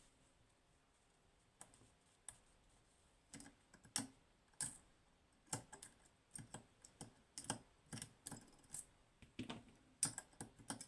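Faint, irregular metallic clicks and taps from a flag pick working inside a DOM IX dimple lock's pin stack. They are sparse at first and come more often from about a third of the way in, as the stuck flag is worked free by depressing a pin.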